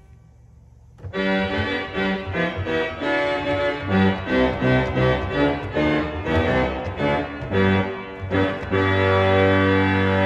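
Reed stops of the second manual of an 1890 Roques pipe organ sounding together. About a second in, a passage of full chords and moving notes begins, and it ends on a long held chord that is released right at the end.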